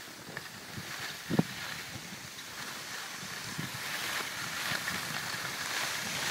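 Steady hiss of skis sliding over snow, mixed with wind on the microphone. A brief knock comes about a second and a half in.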